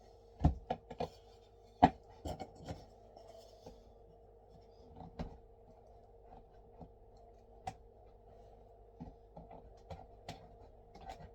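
Wooden beehive frame parts being handled and pressed together by hand: scattered light knocks and clicks of wood on wood, the sharpest about half a second and two seconds in, over a faint steady hum.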